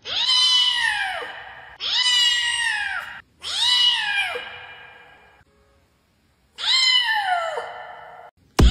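A white long-haired kitten meowing four times. Each drawn-out meow rises and then falls in pitch. Music comes in just before the end.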